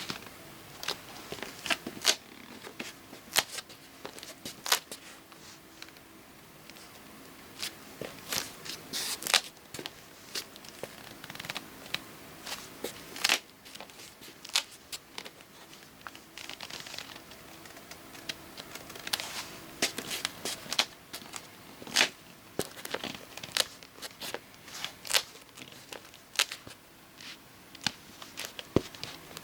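Irregular sharp clicks and crackling scratches, at times several a second, with short quiet gaps between.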